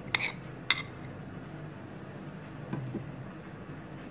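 Two light clinks of kitchenware as chopped green chilies are tipped from a small ceramic dish into a stainless steel bowl, the second about half a second after the first, each ringing briefly. After that only a low, steady background hum.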